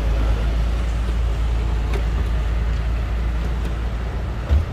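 Steady low rumble of an idling car engine, with a few faint ticks of a screwdriver working the bolts of the reversing-camera housing and a short thump near the end.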